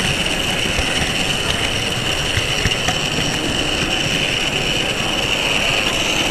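Model railway locomotive's electric motor and gears running with a steady high whine as it travels, with occasional clicks from the wheels over rail joints and points.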